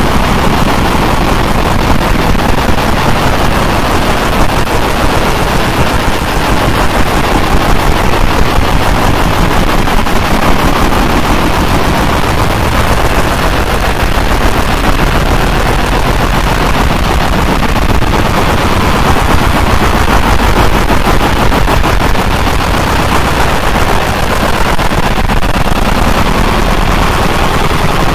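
JPT 50 W fiber laser marker engraving a brass dog tag at high power: the beam burns into the brass with a loud, rapid, continuous crackling.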